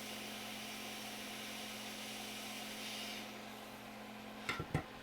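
Steady hiss of a hot air rework station's airflow over a low hum; the hiss cuts off about three seconds in. Two light clicks follow near the end.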